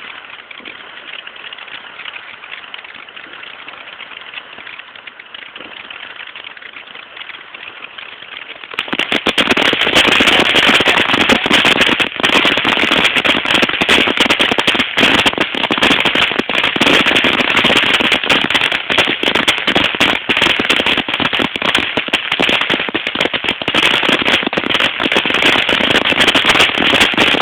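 A steady hiss, then about nine seconds in a long string of firecrackers goes off: dense, rapid popping for around eighteen seconds that stops abruptly.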